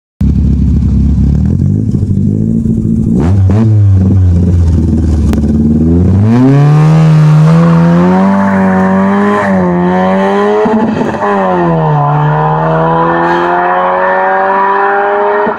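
Mk1 VW Caddy's four-cylinder engine on twin Weber 40DCOE carburettors and a 285 cam, through a straight-pipe John Ashley exhaust. It idles, gets a quick blip of the throttle, then pulls away hard. The revs climb, drop at two gear changes, and climb slowly again in the higher gear.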